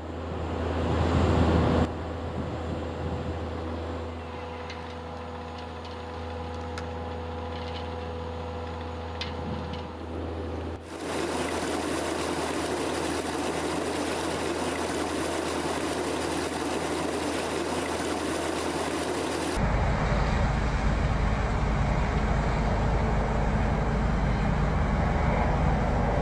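Tractor engines running steadily with a Vermeer VS350 vertical feed mixer wagon at work. The sound changes abruptly about 2, 11 and 20 seconds in, with a heavier low rumble from about 20 seconds in.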